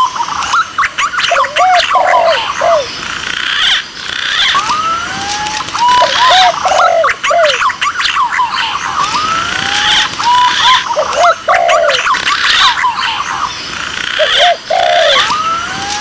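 Bird-lure recording of spotted doves (tekukur) and green pigeons (punai) calling back and forth. Rising, gliding whistled notes and short arching calls, over higher chirps and clicks, in a sequence that repeats about every four seconds.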